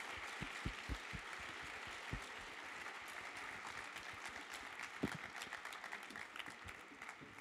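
Audience applauding: many hands clapping in a dense patter that gradually fades near the end.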